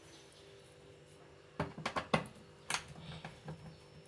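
Screwdriver clicking and tapping against a screw and the plastic door ring of a front-loading washer as it is set into the screw: a cluster of five or so sharp clicks about halfway through, then a few lighter ticks.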